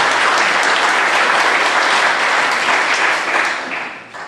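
An audience in a hall applauding, steady and loud, then dying away near the end.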